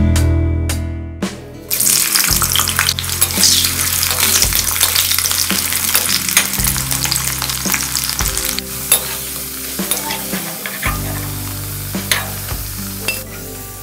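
Potato wedges deep-frying in hot oil in a kadai, a dense crackling sizzle that starts suddenly about two seconds in, with a metal ladle stirring and turning them.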